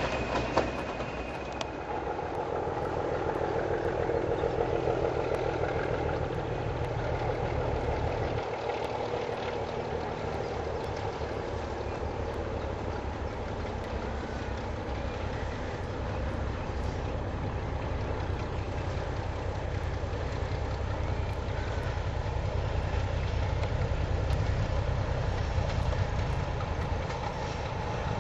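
Class 37 diesel locomotive hauling coaches, its engine running steadily under load with train noise as it approaches. The sound changes abruptly about eight seconds in, where a second run-past begins.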